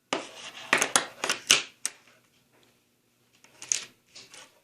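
A quick run of about six sharp clicks and clacks, as of small hard parts knocking together while an object is handled, then a short pause and a few fainter clicks near the end.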